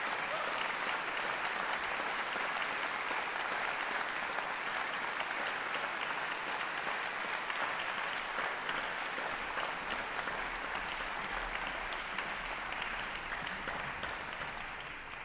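Audience applauding in a concert hall, a dense, steady clapping that starts to taper off near the end.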